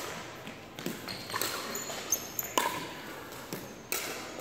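Pickleball rally: paddles popping against the plastic ball, about four sharp echoing hits roughly a second apart, with brief sneaker squeaks on the hardwood floor between them.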